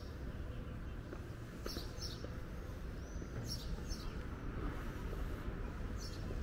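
Small birds chirping outdoors: short, high chirps, mostly in pairs, a few times over a steady low background rumble.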